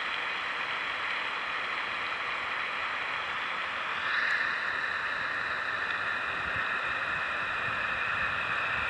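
Steady hiss from a small handheld voice recorder's speaker playing back a silent pause in an EVP recording. About four seconds in the hiss grows a little louder and a faint steady whine joins it.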